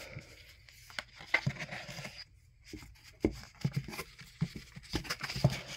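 Comic books being shuffled by hand in a cardboard box: paper and cardboard rustling, with scattered light knocks and scrapes.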